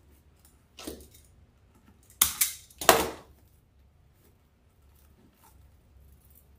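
Handling noise: a faint short rustle, then two loud short rustles about half a second apart.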